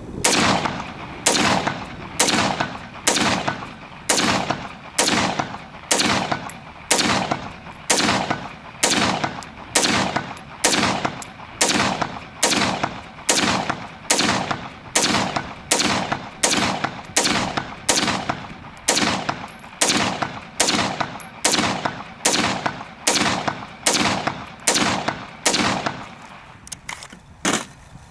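Ruger AR-556 5.56 semi-automatic rifle fired at a steady pace of a little over one shot a second, emptying a 30-round magazine; every round cycles with no malfunction. The shooting stops shortly before the end.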